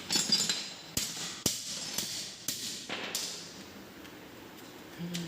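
Metal hand tools clanking, tapping and scraping on motorcycle engine parts while bolts are tightened during reassembly, with two sharp clicks about a second and a second and a half in.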